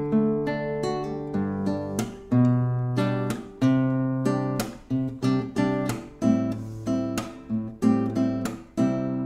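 Aria AK-35CE nylon-string classical guitar played fingerstyle, a slow piece of plucked notes and chords at about two a second, each ringing and fading. The tone is a little bright, which the player puts down to a freshly broken fingernail.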